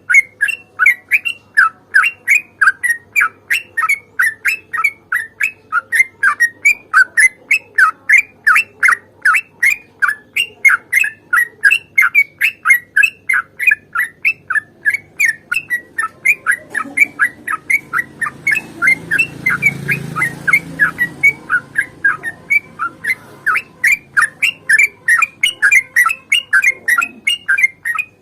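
Yellow-vented bulbul (trucukan) singing a long, rapid rolling song: an unbroken run of short chirping notes at about three a second. A low rumble swells and fades beneath it in the latter half.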